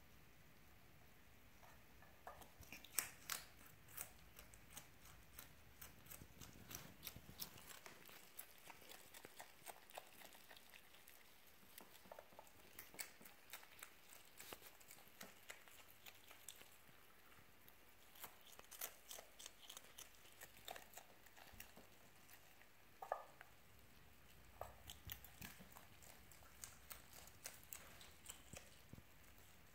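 Fennec fox chewing and crunching its food: quiet, irregular crunches and clicks, with a couple of louder sharp clicks, one about three seconds in and one near the two-thirds mark.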